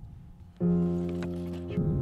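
Soundtrack music cuts in suddenly about half a second in: a loud held low note that gives way to another held note near the end.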